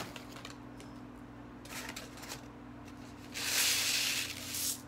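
Dry rice grains pouring through a paper funnel into a plastic bottle: a short, faint hiss about two seconds in, then a louder rush of grains from about three and a half seconds in until near the end. A steady low hum sits underneath.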